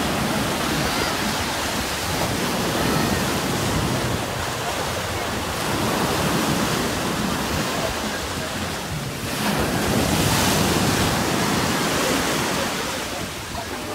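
Breaking surf washing through the shallows, a steady rushing wash of waves, with wind buffeting the microphone. A louder surge comes about two-thirds of the way through.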